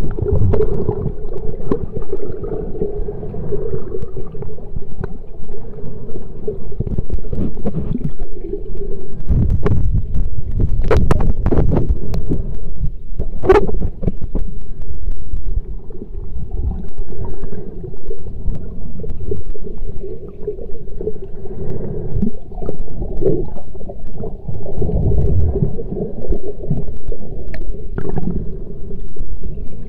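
Muffled underwater noise picked up by a submerged camera: low rumbling and surging of moving water with a steady hum underneath, and a few sharp clicks, one near the middle.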